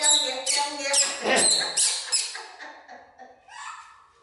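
Baby macaque squealing: a run of short, high-pitched calls about two a second that fade out after about two seconds, then one weaker call near the end.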